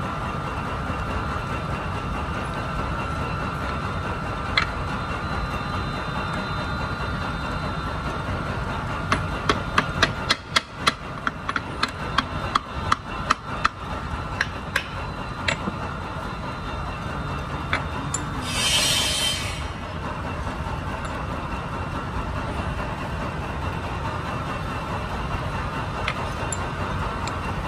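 Steady hum of workshop machinery, with a run of sharp knocks about two a second from about 9 to 15 seconds in, and a short hiss about 19 seconds in.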